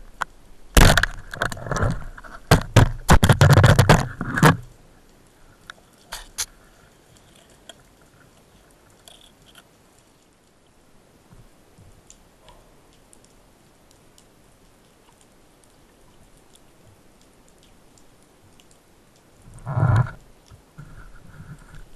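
Wooden band speargun fired underwater: a sharp clack about a second in, followed by several seconds of knocking and clattering from the spear and shaft as a sea bass is speared in a rock den. Then faint underwater background, with a brief louder burst near the end.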